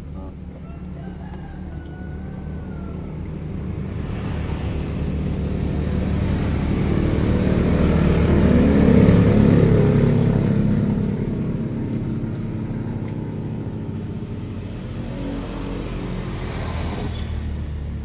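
A motor vehicle's engine passing by: it grows louder to a peak about halfway through, then fades away.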